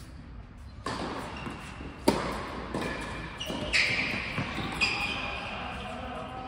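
Tennis ball being struck by rackets and bouncing on an indoor hard court during a doubles rally: several sharp pops, the loudest about two seconds in, ringing in the large hall.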